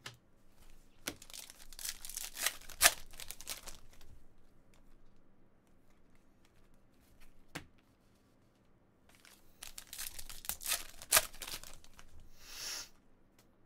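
Stiff glossy trading cards (2018 Panini Select) sliding and flicking against each other as they are flipped through one by one, with crisp rasping clicks in two spells and quieter gaps between.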